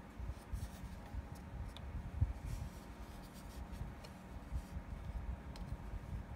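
Hands handling a plywood clock, fingers rubbing and shifting on the wooden frame, with faint scratchy rubs and a few light clicks.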